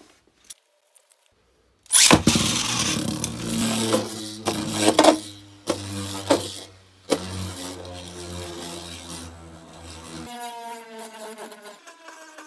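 Beyblade Burst top launched into a clear plastic stadium: a sudden loud start about two seconds in, then the top spinning and rattling on the plastic floor, with several sharp knocks against the stadium wall. About ten seconds in the low hum drops away, and a thinner tone falls slowly in pitch as the top loses speed.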